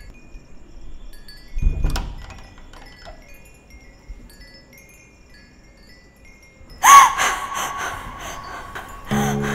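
Metal-tube wind chime tinkling softly, with a single thud about two seconds in. About seven seconds in a woman screams, sudden, loud and held, and low droning music comes in near the end.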